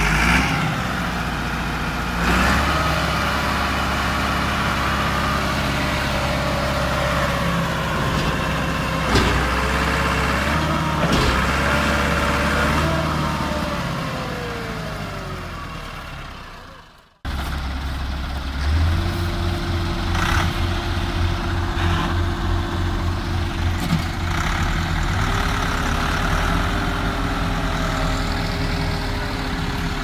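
Massey Ferguson 385 tractor's four-cylinder diesel engine working while the tractor is stuck in mud, its pitch sagging before the sound fades out. After a break it runs steadily again, its speed stepping up a little about two-thirds of the way through.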